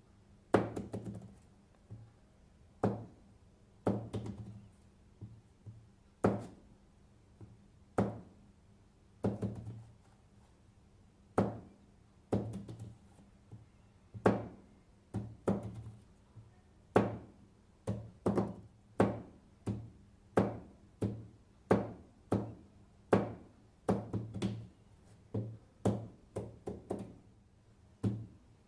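Marbles rolling inside a wooden fidget stick and knocking against its wooden ends as the stick is tipped back and forth. The sharp knocks come about once a second at first and faster in the second half.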